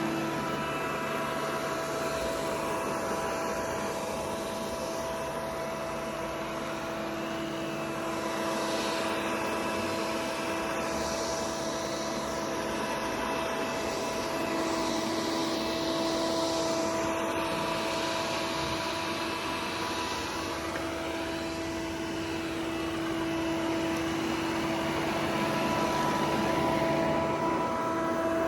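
Robot vacuum cleaner running: a steady motor hum with a few held tones over a hiss that slowly swells and fades. The lowest tone drops out a couple of seconds in and comes back near the middle.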